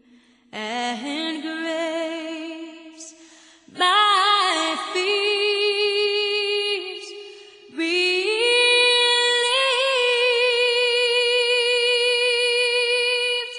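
A woman singing a slow song solo, in three phrases with vibrato, the last note held for about five seconds.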